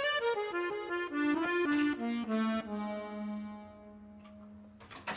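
Accordion scene-transition music: a quick descending run of notes that settles on one long held low note and fades, with a short click near the end.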